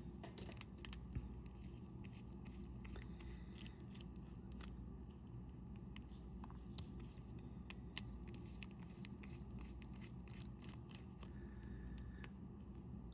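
Faint, scattered small clicks and scratches of hands and small tools working on a resin watch, with a low steady room hum underneath.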